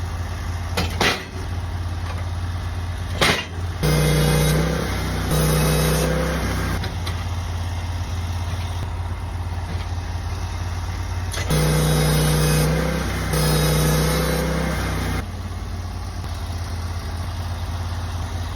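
Portable sawmill running steadily while milling pine, its engine drone joined several times by a hum that comes and goes in stretches of a second or two. Two sharp knocks sound in the first few seconds.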